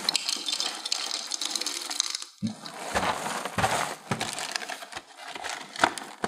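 Dry Drumstick cereal pouring from the box's plastic liner into a glass bowl, a dense rattling patter for about two seconds. It is followed by crinkling of the plastic bag and rustling of the cardboard box as it is closed up.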